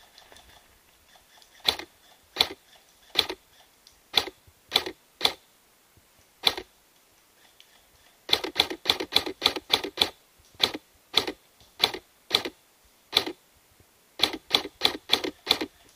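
Airsoft gun firing: single shots spaced out, then a quick run of about ten shots some eight seconds in, a few more single shots, and another fast run of about seven shots near the end.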